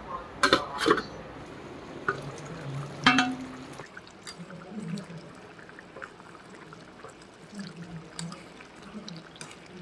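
Steel lid and spatula clanking on a metal kadai, two sharp clanks near the start and a louder ringing clank about three seconds in, followed by the wet bubbling of pork and taro curry simmering in the pan.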